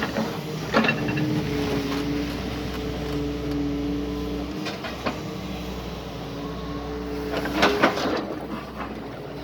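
Doosan DX140 excavator running, a steady engine and hydraulic drone with a couple of held tones, broken by several sharp knocks; the loudest knocks come in a quick cluster near the end.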